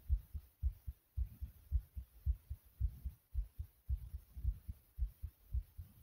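A fast human heartbeat, about two beats a second, each beat a low double thump.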